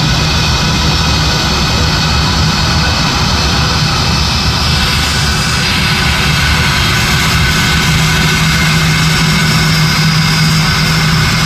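Airbus A320-200's jet engines running at a steady level with a high whine. A higher tone joins about five seconds in, and a low hum grows stronger a few seconds later.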